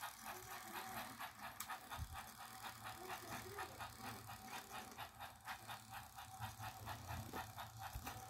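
Battery-powered toy train engines running up a slope of plastic track: a small motor whirring with a rapid, even clicking of gears and wheels.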